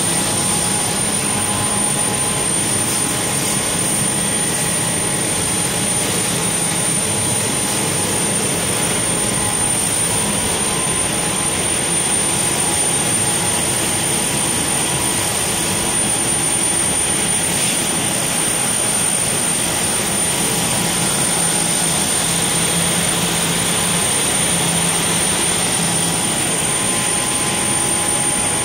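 Mersan ACT-AUTO antipilling cleaning and reversing machine running with wet tubular fabric: a steady, loud mechanical whir with a constant high-pitched whine over it.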